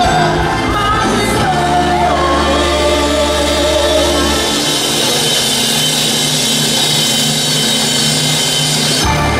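Musical-theatre cast singing with band accompaniment, building to a long held final chord that cuts off near the end.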